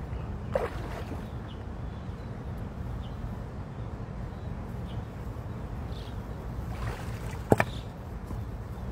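Steady low wind noise on the microphone over shallow running water, with small splashes as hands grope among the rocks in the stream and one sharp slap about seven and a half seconds in.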